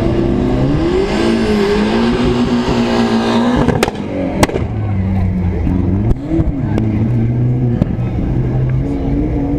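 Rally car engines running at the start line, the revs rising and falling twice. There are two sharp cracks, a little over half a second apart, about four seconds in.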